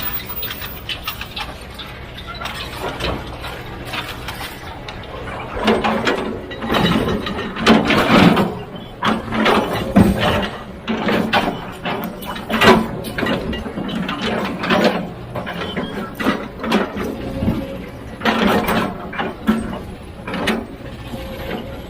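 Heavy earthmoving machinery working stone: a low steady hum, then from about six seconds in many irregular metallic clanks and scrapes.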